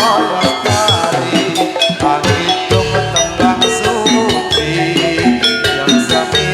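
Javanese gamelan music for a jathilan dance, played loud: struck metallophones ringing out over kendang drum strokes in a steady beat.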